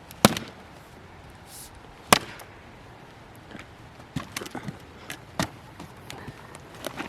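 Axe blows chopping into a stump's wood: three sharp strikes, a couple of seconds apart, with lighter knocks between them.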